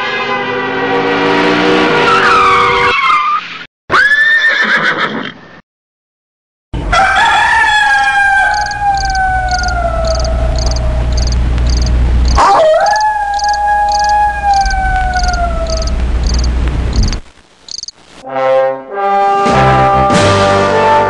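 Soundtrack sound effects: two long falling whistling tones, each lasting several seconds over a low rumble and a regular high ticking about twice a second. Music with held chords starts near the end.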